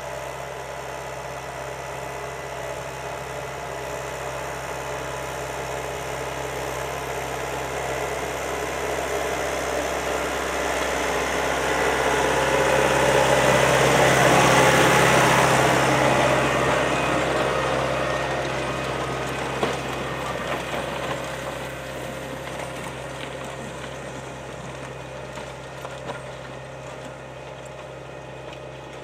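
John Deere 6310 tractor's diesel engine pulling a reversible plough, growing louder as it approaches, loudest about halfway through as it passes, then fading away.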